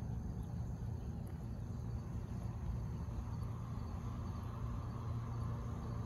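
Steady outdoor background of a faint insect chorus over a low, even hum.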